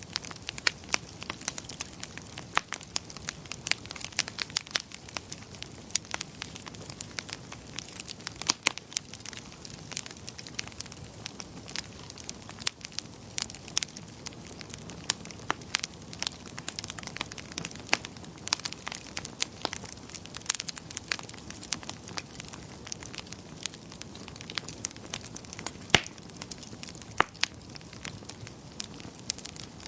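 Wood fire crackling in a fireplace: irregular sharp snaps and pops, several a second and some louder than others, over a soft steady rumble of the flames.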